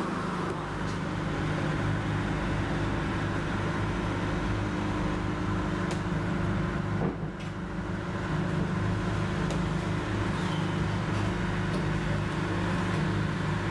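Boat engine running steadily, a low even hum, with a single click about seven seconds in.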